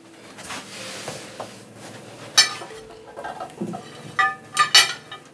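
Charger plates handled and set down on a dining table: a soft rustle, then a few sharp clinks and clatters, most of them bunched together near the end.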